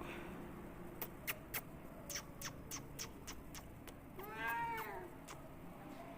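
A cat gives one short meow about four seconds in, among scattered faint clicks.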